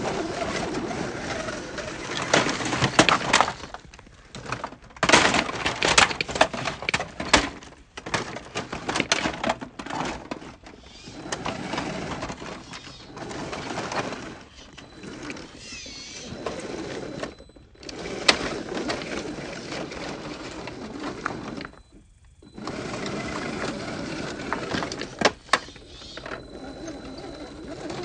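Loose rocks and gravel crunching and clattering under a scale RC rock crawler's tyres as it climbs a rocky slope and tips over, in irregular bursts with sharp clicks of small stones.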